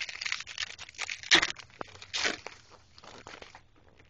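Crinkling and rustling of plastic packaging and trading cards being handled, with two louder crackling tears about a second and two seconds in, then it dies away.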